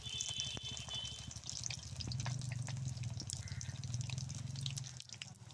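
Oil sizzling and crackling around pumpkin-leaf-wrapped egg fritters frying in a karahi, with a low steady rumble underneath that is strongest in the middle.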